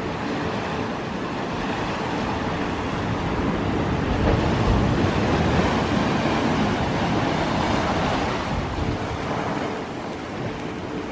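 Ocean surf washing in around rocks and over a flat beach, a steady rushing that swells to its loudest in the middle and eases off near the end.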